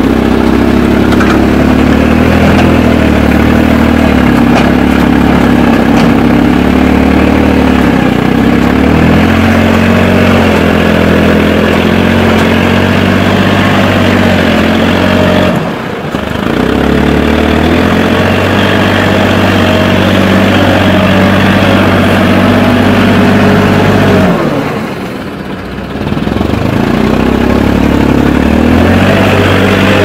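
WS200R compact backhoe loader's engine running while the machine works its loader and backhoe, its pitch stepping up and down with the load. The sound drops away briefly twice.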